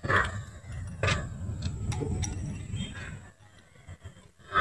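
Open-end spanner working the tappet lock nut on a diesel engine's rocker arm while the lock nut is loosened for valve clearance adjustment: a few sharp metallic clicks, roughly a second apart, over low handling noise that dies away near the end.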